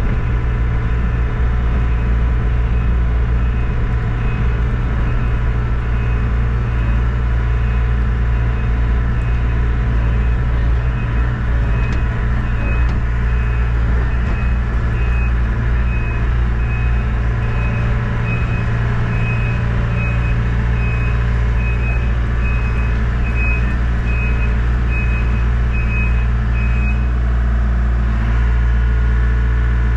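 Takeuchi mini excavator's diesel engine running steadily at raised throttle as the machine travels. Its travel alarm beeps about once a second for roughly the second half.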